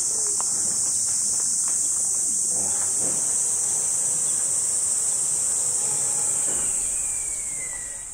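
A steady, high-pitched chorus of cicadas, with faint tinkling of glass wind chimes beneath it; the chorus fades out near the end.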